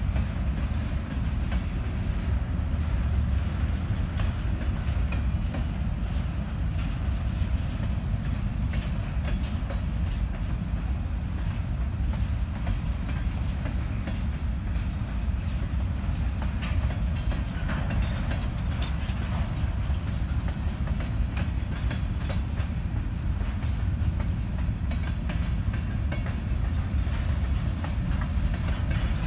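Empty covered hopper cars of a grain train rolling past: a steady low rumble with frequent clicks and clatter from the wheels.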